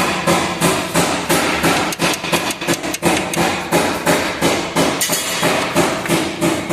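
Rapid repeated hammer blows, about four to five strikes a second, kept up steadily.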